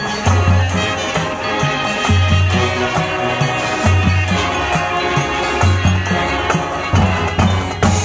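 High school marching band playing a rock-style show: brass and sousaphones with drum kit, electric guitar and percussion, over a low bass figure that repeats about every two seconds.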